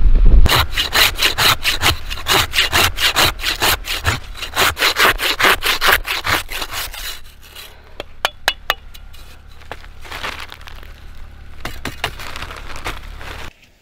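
Hand saw cutting with quick, even back-and-forth strokes, a few a second, for about six seconds, then stopping. Afterwards come scattered sharp clicks and a few softer scraping strokes.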